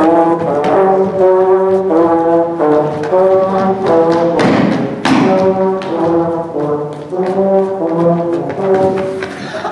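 Concert-band music led by brass, playing full chords that change about every half second, with a noisy crash about halfway through.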